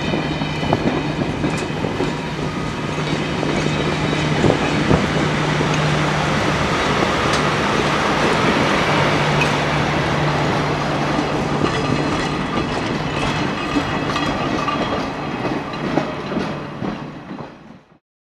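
Passenger train pulling out of the station, its cars rolling away on the track with scattered wheel clicks over a steady low drone. The sound fades out near the end.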